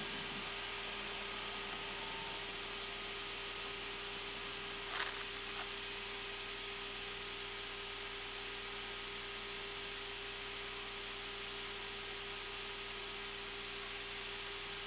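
Airbus A320 cockpit noise in the climb after takeoff: a steady rush of air with a constant low hum.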